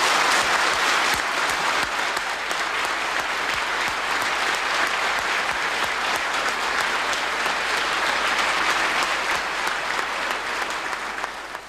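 A large assembly of parliamentary deputies applauding, a steady dense clapping that fades away near the end.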